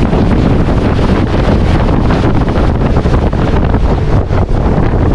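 Motorboat running at speed, with heavy wind buffeting the microphone over the engine and water rushing past the hull.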